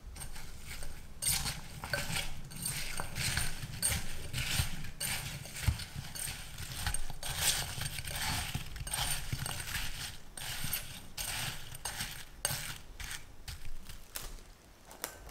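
A silicone spatula stirring sugar-coated strawberries, raspberries and blueberries in a glass bowl: a continuous, irregular run of gritty scraping and crunching of sugar crystals against the glass.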